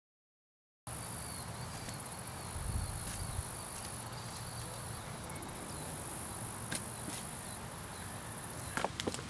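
Outdoor ambience in which a steady, high-pitched insect chorus, crickets, sets in about a second in after silence. Near the end come a few sharp clicks.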